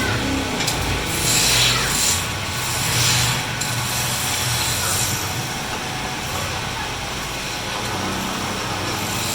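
Wood lathe running, with a turning tool cutting the spinning wood: a low hum under a cutting hiss that swells and fades several times, then runs more evenly.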